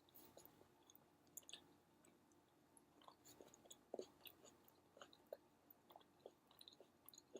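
A person chewing food close to the microphone: faint, irregular wet mouth clicks and small smacks, a few slightly louder around the middle.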